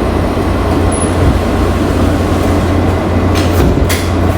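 Washington Metrorail subway train running, heard from inside the car: a steady low rumble with wheel and track noise, and a few sharp clacks between three and four seconds in.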